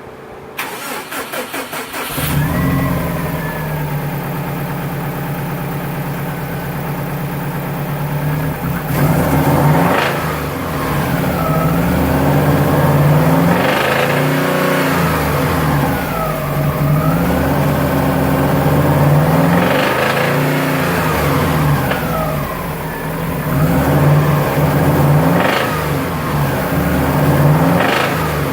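Subaru EJ205 turbocharged flat-four cranked over by the starter for about two seconds until it catches, then idling and revved up and back down about five times. The engine has a noise from the crankshaft area that the owner takes for rod knock from a spun bearing.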